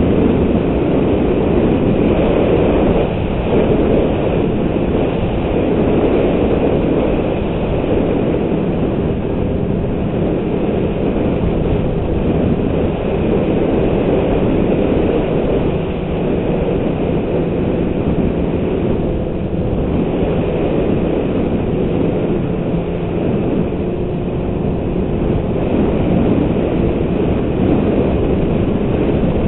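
Snowmobile engine running steadily under way, with the rumble and clatter of its track on packed snow.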